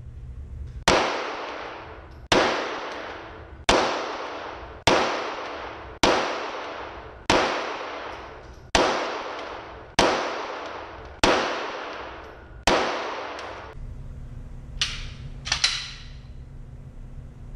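Semi-automatic pistol fired ten times at a slow, even pace, about one shot every 1.2 to 1.4 seconds, each crack ringing out in a long reverberant decay in an indoor range. Two fainter sharp reports follow near the end.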